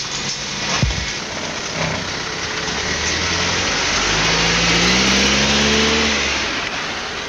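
A motor vehicle's engine accelerating over a steady rushing road noise, its pitch climbing for a couple of seconds past the middle and then easing off near the end.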